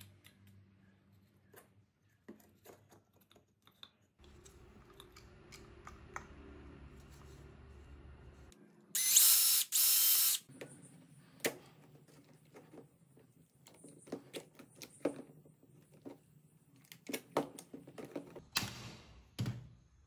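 Cordless drill/driver running in short bursts while driving a screw at a clamp on a PVC pipe: a pair of bursts about halfway through and another near the end, with clicks and taps of the plastic parts being handled between them.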